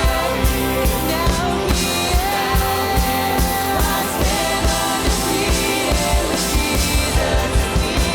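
Contemporary Christian worship band playing with a steady drum beat, with a voice singing the melody over it.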